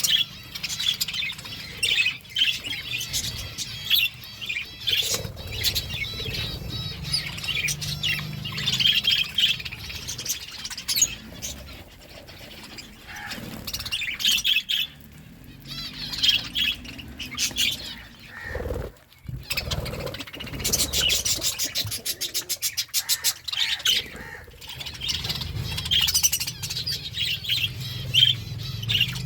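Budgerigars chirping and chattering throughout, with scattered sharp clicks. About two-thirds of the way through comes a quick run of clicks, about eight a second for some three seconds.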